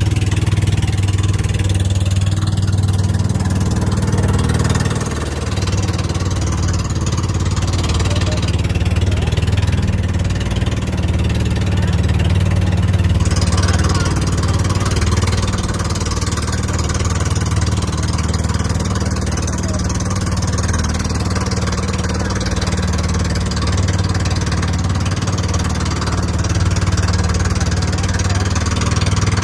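Outrigger bangka boat's engine running steadily under way, with wind and water rushing past.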